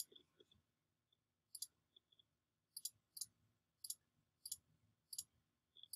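About eight faint, sharp clicks of a computer mouse button, each a quick double click-clack, coming irregularly about every half second to second and a half.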